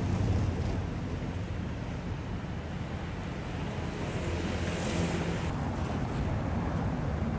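City street noise: traffic going by with a steady low rumble, and wind on the microphone. It swells briefly about five seconds in, as a vehicle passes.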